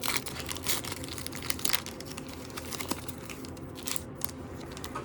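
Foil wrapper of a Pokémon Mega Evolution booster pack crinkling and tearing as it is ripped open, a dense run of crackles.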